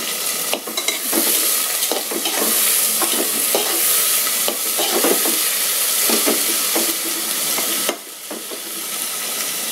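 Sliced onions sizzling in hot oil in an aluminium pressure cooker on a high flame, being stirred with a spatula that scrapes and knocks against the pot. The sizzle turns suddenly quieter near the end.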